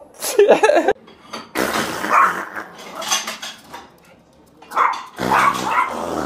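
A dog barking in a few loud bursts, with clattering and scrabbling in between.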